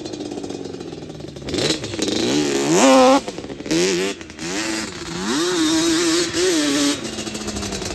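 Yamaha Banshee 350's twin-cylinder two-stroke engine revving hard under acceleration. The pitch climbs steeply several times, loudest about three seconds in, then holds high with a slight waver before easing off near the end.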